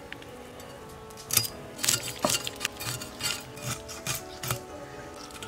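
Repeated rasping scraping strokes, about two to three a second, starting about a second in, over faint background music.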